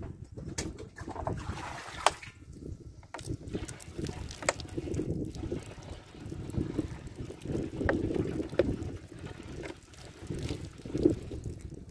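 Water poured from a plastic bottle into a plastic jerrycan to prime a siphon, trickling and splashing, under wind buffeting the microphone. A few sharp clicks stand out.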